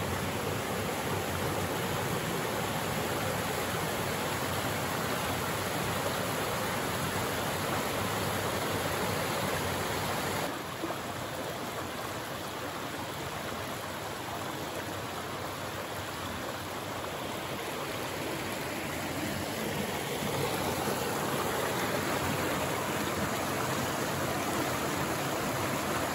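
Steady rushing of a shallow moorland stream, the Rookhope Burn, flowing over flat rock ledges, with the sound shifting slightly about ten seconds in.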